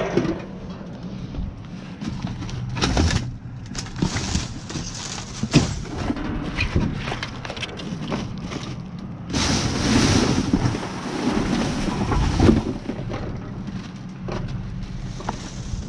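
Gloved hand rummaging through garbage bags in a dumpster: plastic bags rustling and crinkling, with scattered knocks and bumps. The rustling grows denser and louder for a few seconds past the middle.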